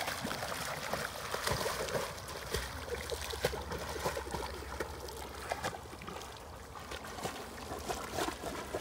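A German shorthaired pointer swimming with a floating Jolly Ball at its head: irregular splashing and sloshing of the water.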